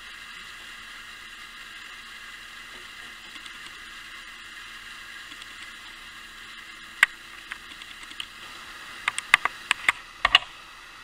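Antique clockwork spit-roaster mechanism running, a steady whir as the grill basket turns. Sharp clicks and knocks come in the last few seconds: a few at first, then a close run.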